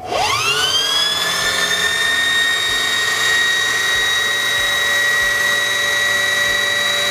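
Singer Heavy Duty 4411 sewing machine running at full speed to wind a bobbin on its bobbin winding spindle. It is a high, steady motor whine that speeds up over the first second and then holds one pitch.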